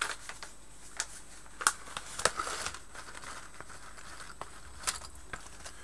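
A plastic kit-parts bag rustling and crinkling as small plastic track plates are taken out, with a few scattered sharp clicks of the parts.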